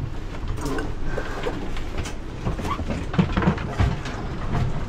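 Sailboat in a storm at sea: a steady low rumble of wind and sea, with knocks, rattles and short creaks from the boat and her loose gear as she is tossed about in the waves.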